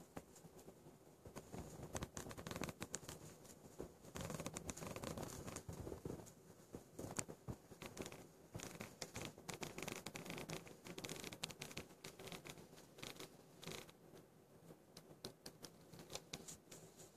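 Faint handling noise from a handheld camera as it pans: irregular small scratches and clicks.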